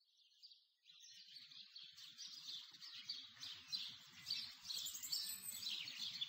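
Songbirds chirping faintly, many short quick calls, fading in about a second in.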